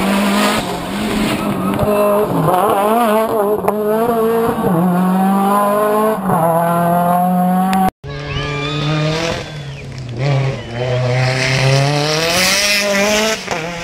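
Mitsubishi Lancer Evo VIII hillclimb car's turbocharged four-cylinder engine accelerating hard up the course. The pitch climbs and drops back at each upshift. It breaks off abruptly about eight seconds in, then runs through the gears again.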